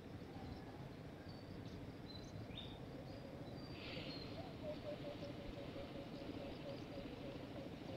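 Faint riverside ambience: short high bird chirps, insects calling, and a soft repeating warble in the second half over a low steady background.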